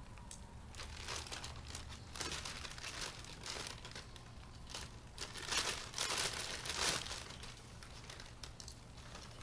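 Plastic packaging bags crinkling and rustling in irregular bursts as they are handled and cut open to free kayak paddle pieces, loudest about six seconds in.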